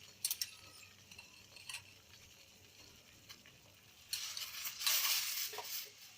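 A spoon clinks a few times as spoonfuls of kashaya powder go into a pan of boiling water. About four seconds in comes a loud hiss lasting a second or two.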